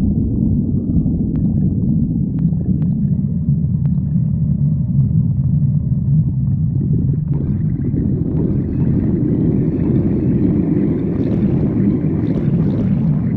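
Stomach growling: a loud, continuous low rumble, with higher gurgling sounds building over the second half.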